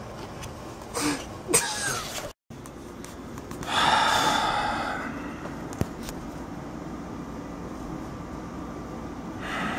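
A loud, breathy exhale of exertion from a person doing pull-ups, about four seconds in and fading over a second, over a steady room hum, with one sharp click near six seconds.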